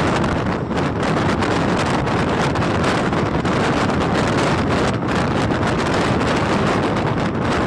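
Wind rushing over the microphone held out of a moving passenger train's open door, buffeting steadily over the running noise of the coach on the rails.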